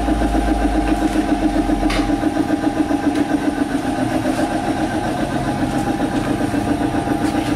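Half-horsepower piston air compressor running steadily: an even mechanical hum with a rapid, regular throb.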